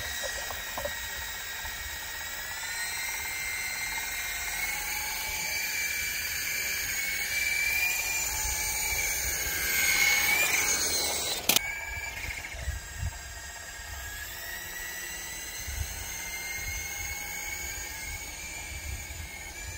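Small radio-controlled toy helicopter's electric motor and rotors whining in flight, a stack of high tones that waver in pitch. About ten seconds in the whine grows louder and rises in pitch, then drops back, with one sharp click just after.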